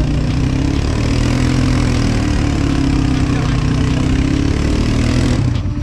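An ATV engine running at fairly steady revs, its pitch wavering slightly. The sound drops away abruptly near the end.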